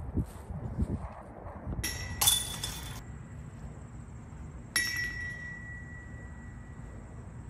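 Metal chains of a disc golf basket clinking and ringing as discs strike them. One clatter comes about two seconds in, and another about five seconds in rings on for a couple of seconds, over a steady low rumble.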